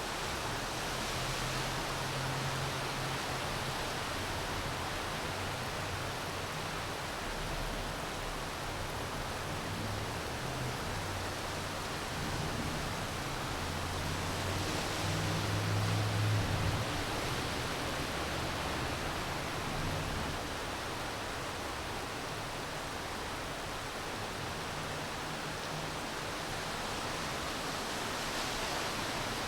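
Steady city rain falling, an even hiss. A low rumble swells and fades around the middle.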